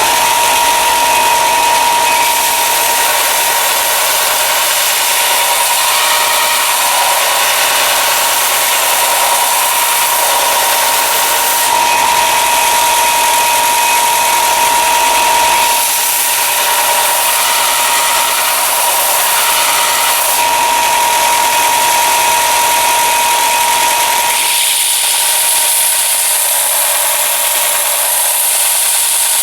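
Electric sander running steadily with a constant whine while it grinds a Scandi bevel into a hand-forged steel knife blade. About 25 seconds in, the sound thins at the bottom and turns brighter and hissier.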